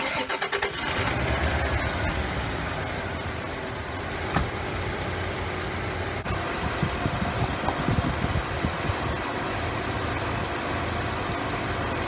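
1989 Dodge Dakota's engine just started and idling steadily with the hood open. It is run so the coolant will flow through a heater core that has been blocking the flush.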